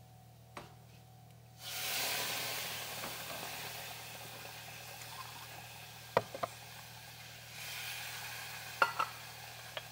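Toasted rice in a hot pot bursts into loud sizzling about a second and a half in, as liquid hits it, and the sizzling slowly dies down. A second surge of sizzling comes near the end. Sharp clicks of utensils against the pot come in quick pairs in the second half.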